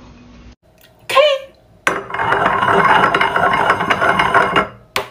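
A drinking glass rattling and clinking against the mouth of a glass beer bottle for a couple of seconds, then one sharp clink near the end, the strike that sets the beer foaming up out of the bottle.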